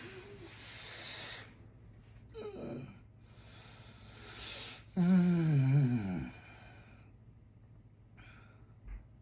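A man snoring in his sleep: noisy breaths, a short snore that falls in pitch about two and a half seconds in, then a louder, longer snore about five seconds in that drops in pitch over a second or so before the breathing goes quiet.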